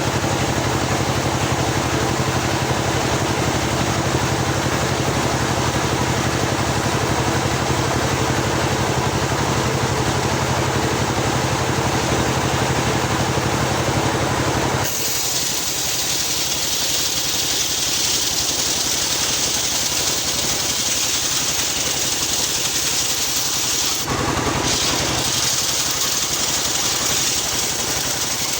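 Homemade circular sawmill running while ripping a teak log: a steady motor sound, then about halfway a loud high-pitched hiss of the blade sawing through the wood takes over.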